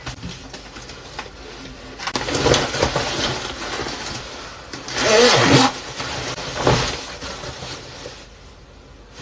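Rustling and rubbing handling noise, with louder bursts about two and five seconds in.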